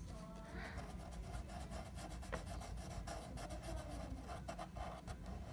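Black Sharpie marker scribbling on paper, many quick short strokes filling in a small solid circle.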